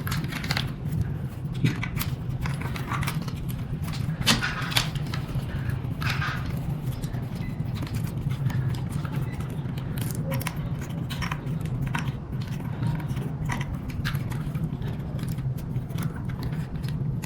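Scattered light clicks, knocks and rustles of wires and parts being handled and tucked into an electric scooter, over a steady low hum.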